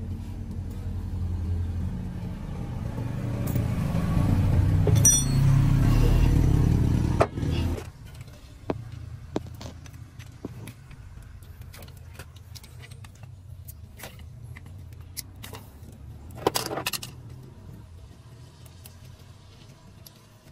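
A motor vehicle's engine running with a low rumble, growing louder, then cutting off suddenly about seven and a half seconds in. After that come scattered light metallic clinks and knocks of hand tools.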